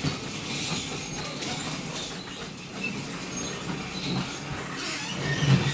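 Toy car's wheels rolling across a hard floor, a steady rumble that rises and falls.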